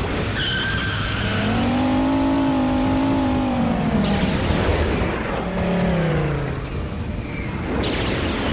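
Tornado wind rushing steadily, with a howling whine that rises and falls, then falls again a few seconds later. Sudden gusts hit about four seconds in and again near the end, as the wind tips a car up.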